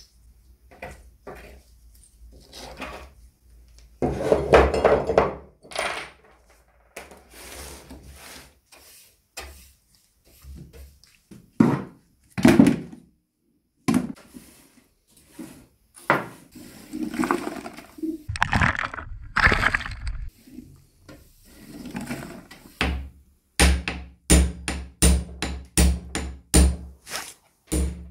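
Rotten wood being scraped and broken apart with a metal scraper, and the crumbled wood swept with a brush into a plastic bucket. Near the end, a hammer strikes a metal punch at the hub of a wooden wheel, about two blows a second.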